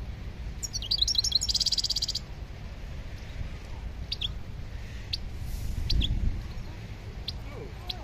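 Caged songbird singing: a quick twittering phrase ending in a rapid, even trill about a second in, then scattered single high chirps, over a steady low rumble of background noise.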